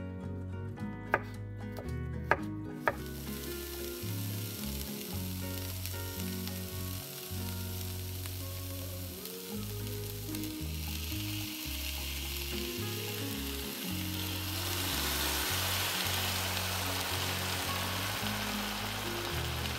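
Food sizzling as it fries in oil in a pan, the hiss growing louder about halfway through. A few sharp knife chops on a cutting board come in the first three seconds, before the sizzling starts.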